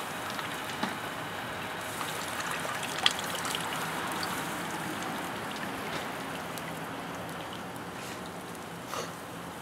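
Charcoal fire sizzling and crackling steadily under a spit-roasting rabbit, as the freshly poured soy basting juice drips onto the hot coals, with a sharp pop about three seconds in.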